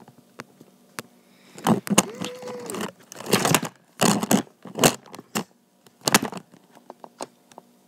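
Handling noise of plastic slime containers and the phone: a string of sharp knocks and short rustling scrapes, with one brief pitched note about two seconds in.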